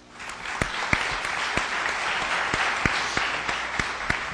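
Audience applauding. The clapping starts suddenly and thins out near the end.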